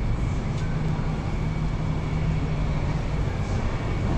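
Steady low mechanical hum of machinery running in a bus garage, with a faint high whine held above it.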